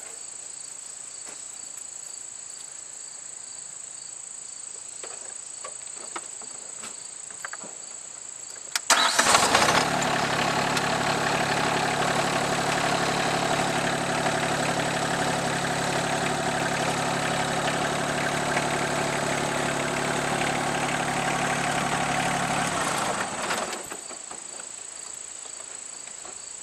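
Rural King RK24 subcompact tractor's three-cylinder diesel engine cranking and catching about nine seconds in, then running steadily at a fixed speed while the tractor is backed out of its front loader, and shut off about fourteen seconds later. Crickets chirr steadily throughout.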